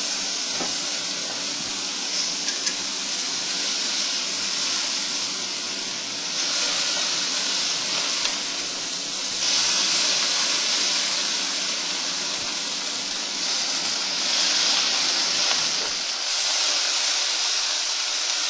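Steak sizzling on an indoor grill: a steady hiss that swells and eases every few seconds.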